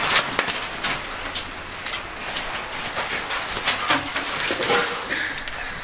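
Irregular rustling and scuffling of tent fabric and groundsheet as dogs scramble about inside the tent, with many small brushing and knocking sounds.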